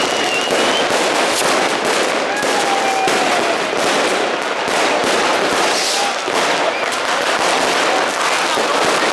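Continuous barrage of firecrackers and fireworks going off all around, bangs and crackles overlapping with no let-up, with a few faint whistles gliding in pitch.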